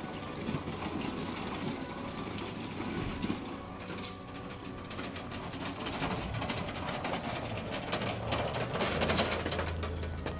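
Home-built electric lawn tractor driving over loose gravel: a steady electric drive-motor whir with gravel crackling under the tires and front blade, growing louder as the tractor comes close near the end.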